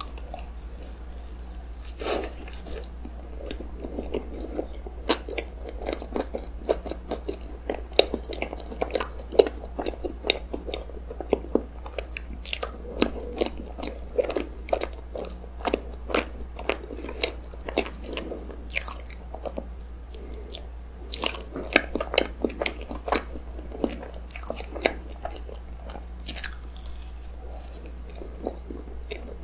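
Close-miked chewing of a soft, cream-filled blueberry yogurt roll cake, starting with a bite: wet, sticky mouth sounds with many short clicks, over a steady low hum.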